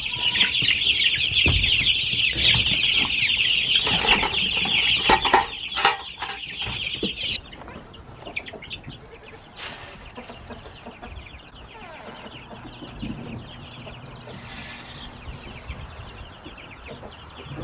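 A brood of meat-bird chicks peeping in a dense, loud chorus, with a few knocks among them. About seven seconds in, the chorus drops suddenly to faint peeping.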